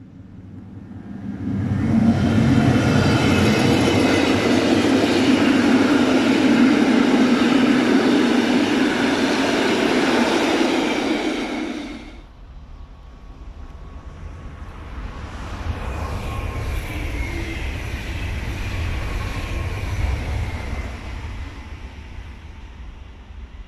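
A red Rhaetian Railway electric locomotive with passenger coaches passing close by at speed. After a sudden cut near the middle, a second electric train passes more quietly, with a whine that falls in pitch as it moves away.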